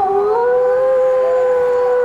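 A pack of wolves howling together: several long, held howls at different pitches overlap, one gliding slightly upward about half a second in.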